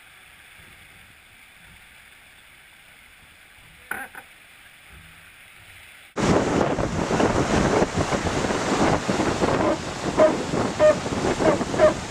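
A faint, muffled hiss with one short knock about four seconds in, then suddenly loud rushing water of a racing yacht's wake as the Swan 45 planes at speed, with wind buffeting the microphone.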